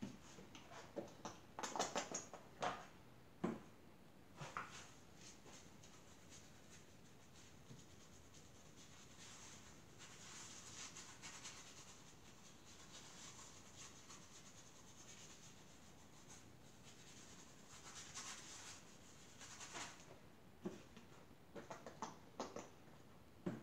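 Faint scraping and scratching of hand tools working the clay in a plaster tile mold. Scattered clicks and knocks come in the first few seconds and again near the end, with a longer stretch of steady scraping in between.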